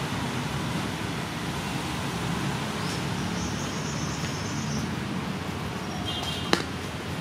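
Steady outdoor background noise, like distant traffic, with a few faint high chirps and one sharp click about six and a half seconds in.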